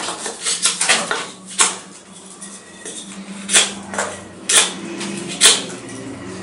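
Folding knife blade shaving a block of wood by hand: a quick run of short scraping cuts in the first second, then single sharp strokes about once a second, over a faint steady low hum.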